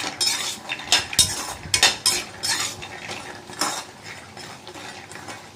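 A metal spatula scraping and stirring cashews around a non-stick kadai, with the nuts rattling against the pan in irregular strokes. The cashews are being dry-roasted until golden.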